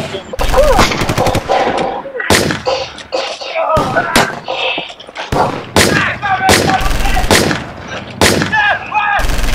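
Gunfire: repeated loud single shots and a quick burst of rapid automatic fire about half a second in, each shot ringing on with an echo.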